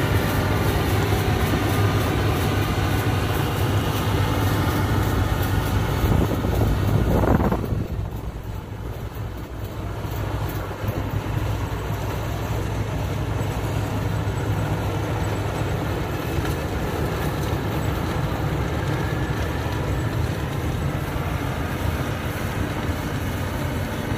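Yanmar AW82V combine harvester running steadily with a deep engine hum while harvesting rice. About seven seconds in, the sound drops and turns duller, then runs on more quietly.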